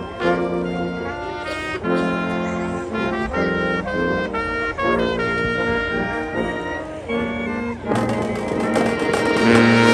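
High school marching band playing: the brass section holds chords in short phrases. About eight seconds in, the full band with drums and cymbals comes in louder.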